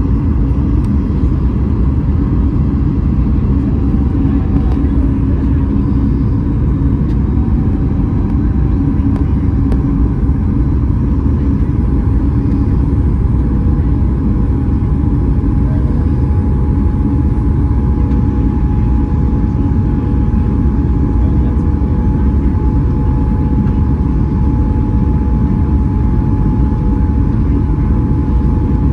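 Cabin noise inside a Boeing 737 MAX 9 on approach: a steady loud rumble of airflow and its CFM LEAP-1B engines, with a thin engine whine that steps up slightly in pitch twice in the first half.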